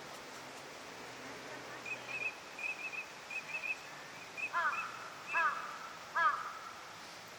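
Eurasian teal calling: a run of short, high piping notes in twos and threes, then three louder, ringing calls about a second apart.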